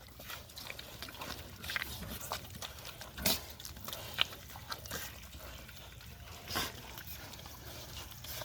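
Pigs grunting in short, irregular bursts, the loudest about three seconds in and again past six seconds.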